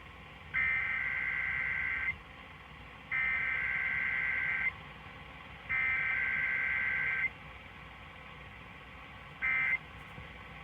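Emergency Alert System SAME header tones over AM radio: three buzzy two-tone digital data bursts of about a second and a half each, roughly a second apart, then one short burst near the end.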